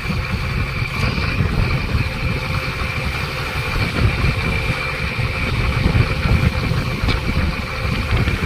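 Mechanised fishing boat's engine running steadily, with a steady high whine through it, over sea water rushing and churning against the hull as the trawl net is hauled in.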